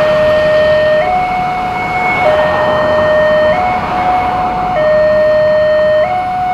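Railway level-crossing warning siren sounding normally, in a steady two-tone alternation. A lower and a higher tone swap about every 1.2 seconds.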